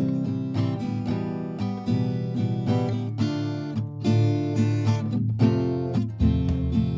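Background music: an acid-jazz instrumental with guitar over a bass line, playing steadily.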